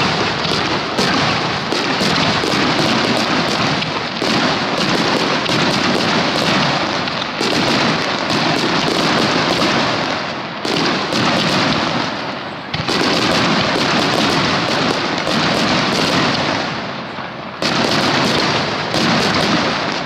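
Starmine fireworks barrage: aerial shells bursting in rapid succession, a dense run of booms and crackling, with fresh volleys setting in several times.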